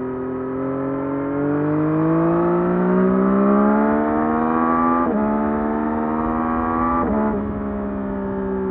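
2024 Yamaha MT-09's three-cylinder engine through its stock exhaust, accelerating hard with its pitch climbing steadily. It shifts up twice, about five and about seven seconds in, the pitch dropping sharply at each shift before it pulls on.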